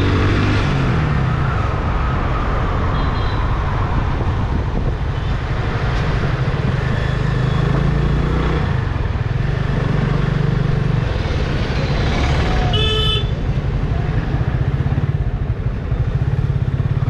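Yamaha FZ25's 249 cc single-cylinder engine running under way, heard with wind noise from a handlebar-mounted camera, its note rising and falling with the throttle. A short horn toot about thirteen seconds in.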